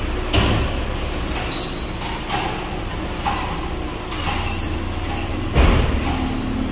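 Car service-station noise: a steady low hum broken by about six short hissing bursts.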